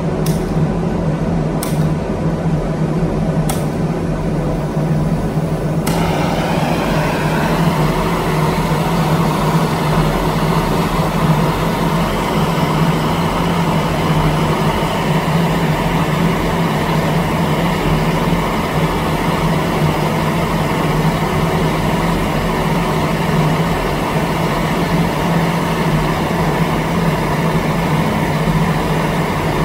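A few sharp clicks, then about six seconds in a handheld gas blowtorch flame starts and burns with a steady hiss, held on a painted wooden board and charring the paint. A steady low hum runs underneath throughout.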